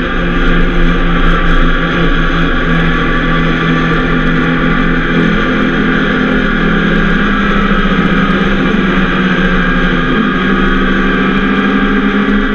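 Motorcycle engine running at road speed, heard from on the bike under a dense, steady rush of wind noise; the engine note steps up in pitch about ten seconds in.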